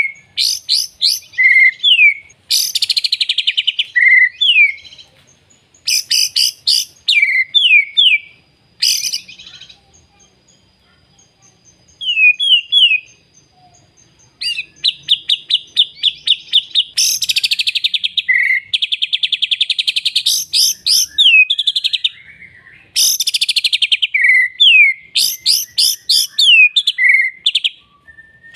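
Songbird singing loudly in repeated rapid trills and sweeping whistled notes, a full repertoire of borrowed phrases, going quiet for a few seconds near the middle before resuming.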